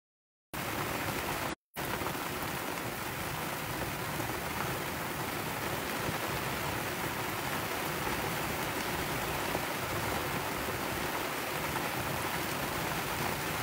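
Heavy tropical-storm rain pouring down steadily on the sailboat and the sea around it, a dense even hiss with no wind or thunder. The sound drops out completely for a moment at the very start and again about a second and a half in.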